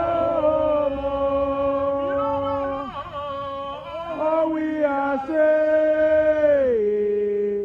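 Protesters singing a slow chant in long held notes that change pitch every second or two, the last note gliding down near the end.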